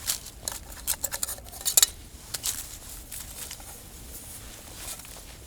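Metal camping cookware being handled: a quick run of clinks and rattles in the first couple of seconds, then a few scattered ones.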